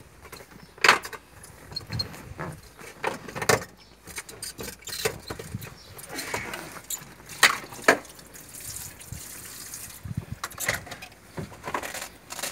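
Hands working a car's fuel pump module loose from the fuel tank opening: irregular clicks, knocks and scrapes of plastic and metal parts. A soft hiss runs for about a second and a half about eight seconds in.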